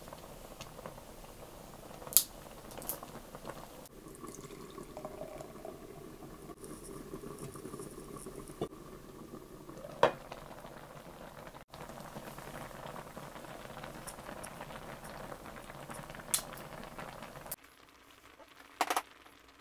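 Nabe broth bubbling steadily in a ceramic hot pot, with a few sharp clinks of chopsticks and the glass lid. The loudest clinks come about two seconds in and about ten seconds in, as the lid is lifted. The bubbling drops quieter near the end.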